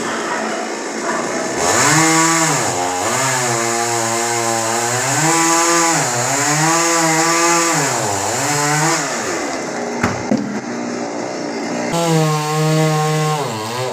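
Chainsaw cutting through a coconut palm trunk, its engine pitch repeatedly dipping and recovering as the chain bites into the wood. It eases off briefly with a couple of sharp knocks, then runs up again near the end.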